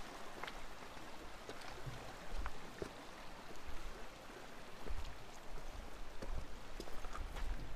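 Shallow river running over stones, with scattered clicks and knocks of rocks shifting underfoot as someone walks the stony bank.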